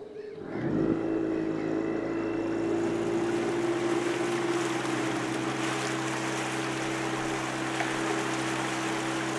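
A small boat's outboard motor picks up about half a second in and then runs at a steady pitch, with the rush of water and wind as the boat moves along.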